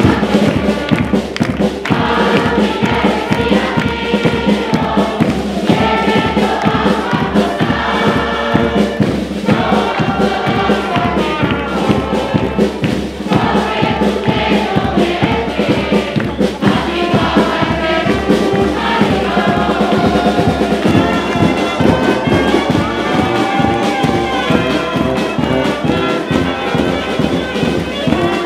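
Spanish carnival murga singing a song together in chorus, in Spanish, backed by a small brass band of saxophones and tuba with a bass drum keeping a steady beat.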